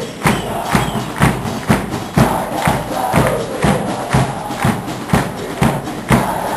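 Supporters' bass drums (bombos) pounding a steady beat, about two strokes a second, while the crowd in the stands chants along.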